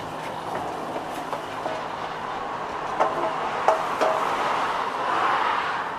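Steady road traffic noise with a vehicle passing, swelling about five seconds in. Around three to four seconds in, a few short metallic clicks with a brief ring come from the metal ice cream scoop knocking against the container.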